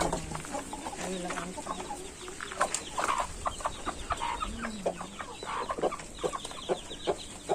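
A flock of Peruvidai country chickens clucking, many short clucks overlapping in quick succession.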